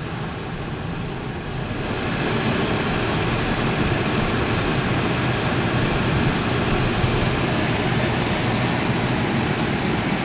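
Cabin noise of a Honda driving on a snow-covered road: a steady rush of tyre and road noise with the engine underneath, growing louder about two seconds in.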